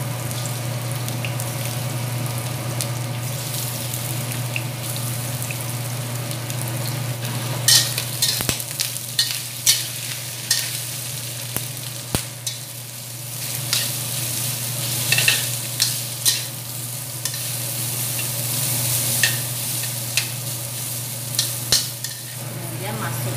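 Crushed ginger and duck pieces sizzling in oil in a stainless steel wok as they are stir-fried, over a steady low hum. From about a third of the way in, a metal spatula scrapes and knocks against the wok many times as the meat is turned.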